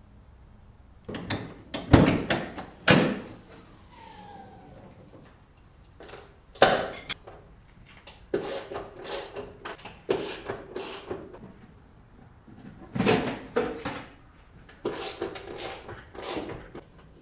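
Metal hand tools and car parts clanking and knocking in irregular bursts as a car's front suspension is taken apart, with the loudest knocks about two and three seconds in.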